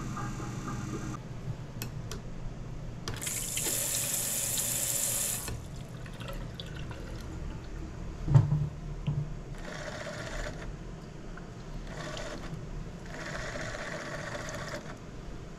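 Water running briefly for about two seconds, then a single knock. After that, a touchless automatic soap dispenser's small pump whirs in three short spurts, the longest near the end, dispensing liquid into a hand.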